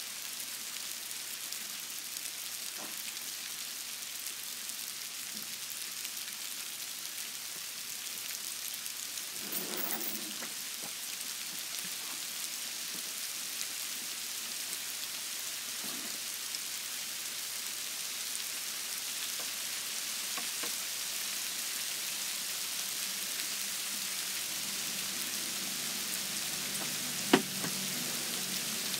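Hail falling on bark mulch, grass and shrubs: a steady, dense hiss of small stones striking, growing slightly louder toward the end. A single sharp click sounds near the end.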